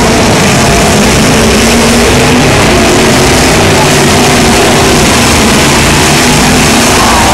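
Demolition derby cars' engines running and revving, with loud voices mixed in, all heavily overloaded and distorted in the recording.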